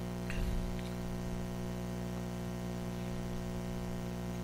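Steady electrical mains hum from the recording setup, with a couple of faint clicks in the first second.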